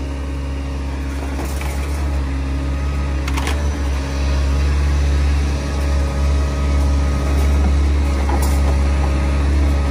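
Hyundai 160 excavator's diesel engine running steadily at close range, getting somewhat louder partway through as the arm and magnet attachment work. Two short clicks stand out, one about a third of the way in and one near the end.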